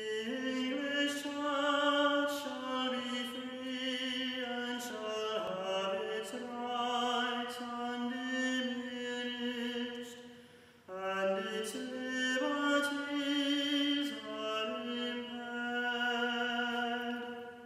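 A choir singing long, held notes that step slowly from one pitch to the next, with a brief break between phrases about eleven seconds in.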